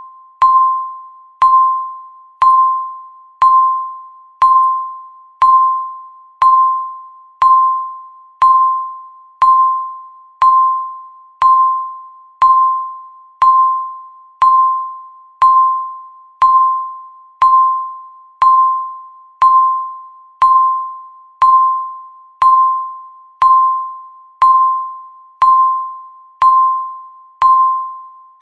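Countdown timer's electronic beep sounding once a second, about 28 times: each beep is the same single mid-pitched tone, starting sharply and fading away like a ding, one for every second left on the clock.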